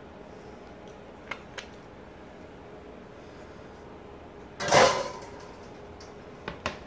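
A few light clicks of kitchen handling, then about two-thirds of the way through a stainless steel mixing bowl set down with a clatter and a brief ring on a gas stove's grate.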